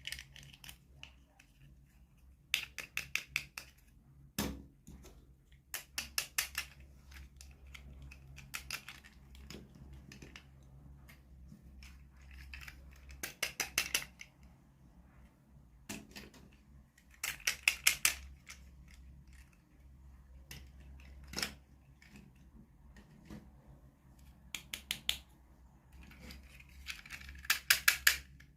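Small toy packaging being handled, in short runs of rapid sharp clicks every couple of seconds, with a faint low hum underneath.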